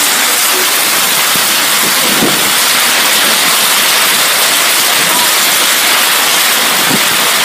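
Heavy rainstorm downpour: a loud, steady rush of rain.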